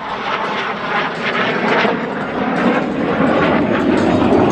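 Jet noise from a Lockheed Martin F-16C fighter in flight: a loud, continuous rushing noise with crackle, growing deeper and fuller in the second half as the jet pulls away.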